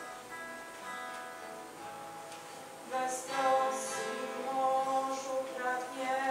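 A live song: a voice singing long held notes over acoustic guitar, getting louder about three seconds in.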